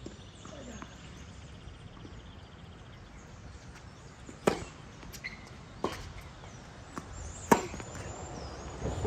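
Tennis ball struck hard by a racket twice: a serve about four and a half seconds in and a louder stroke about three seconds later, with fainter knocks of the ball in play between them. Birds chirp faintly near the end.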